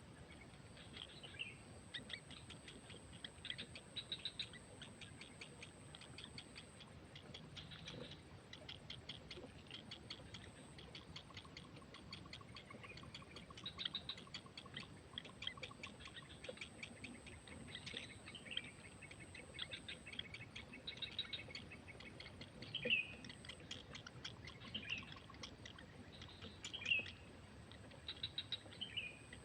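Birds chirping: many short, high chirps and quick falling calls repeated over a low background hiss.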